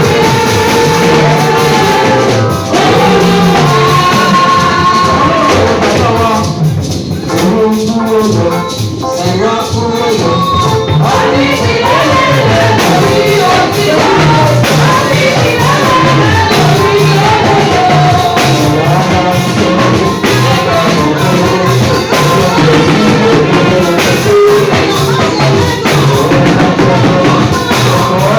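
Church worship music: singing with instrumental accompaniment and a steady beat, thinning out briefly a few seconds in before picking up again.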